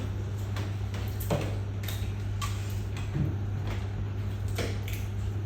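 Scattered light clicks and knocks of cups, bowls and utensils being handled at a table, over a steady low electrical hum.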